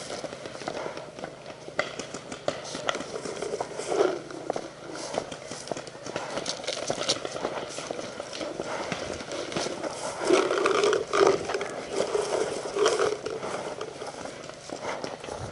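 Footsteps on rough ground with rustling, irregular knocks and scuffs of someone moving on foot.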